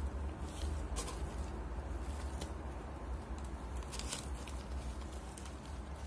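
Handling sounds of a fried-chicken burger: scattered soft clicks and crinkles as it is lifted, set down on its paper wrapper and pressed on the bun, over a steady low hum.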